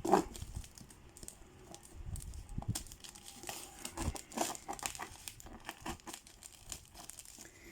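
Shipping parcel packaging crinkling and tearing as it is unwrapped by hand, with irregular crackles and rustles.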